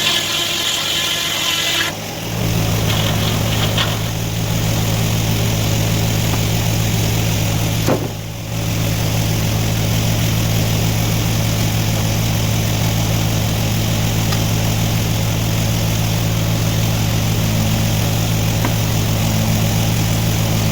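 An engine running steadily at a constant speed, with a higher whine over it for the first two seconds and a brief dip about eight seconds in.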